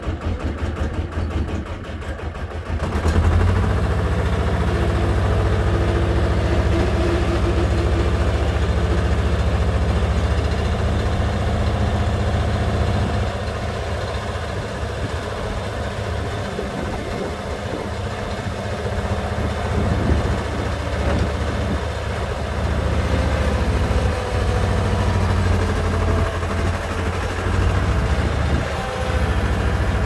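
Bobcat 721 hydrostatic skid steer's diesel engine running. About three seconds in it picks up to a louder, steady speed, then it eases and rises again as the loader raises its bucket and moves.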